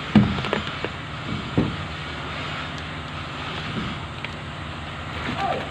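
An engine running steadily, with a few short knocks in the first two seconds.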